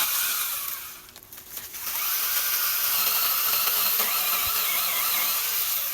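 Cordless mini chainsaw on a pole-saw extension cutting branches, a high-pitched whine in two runs: a short one, a dip of under a second, then a longer steady one.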